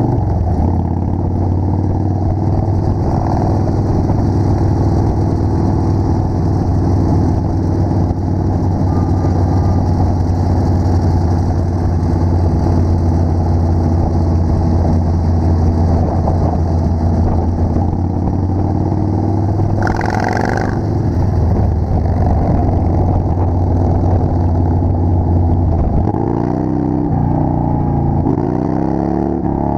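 Motorcycle engine running steadily at cruising speed, heard from a helmet-mounted camera on the ride; near the end the engine note shifts and wavers up and down.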